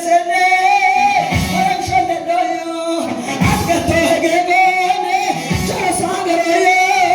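Worship music: a held, wavering melody line over low drum beats that fall in pairs about every two seconds.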